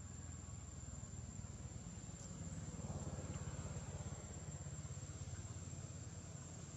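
Steady outdoor background: a low rumble with a thin, continuous high-pitched insect whine over it, swelling slightly about three seconds in.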